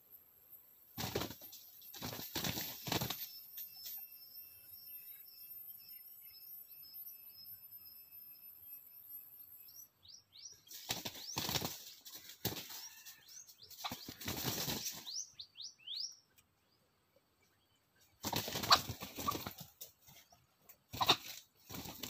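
Junglefowl beating its wings in several short bouts of flapping, separated by pauses; the longest bouts come about halfway through.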